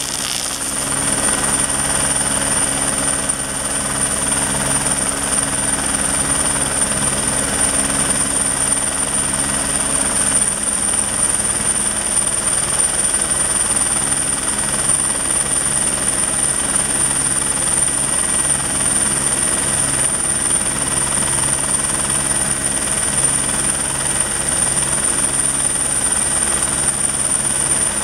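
Helicopter hovering close by: a steady high turbine whine over the fast, even beat of the rotor blades.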